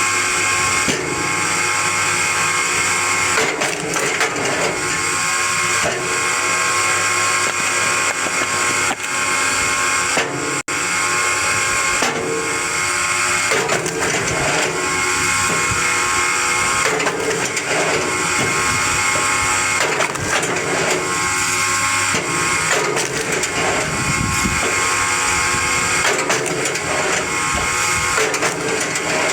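Powered log-splitting machinery running with a steady high-pitched mechanical whine, broken by repeated short knocks. The sound drops out briefly about ten seconds in.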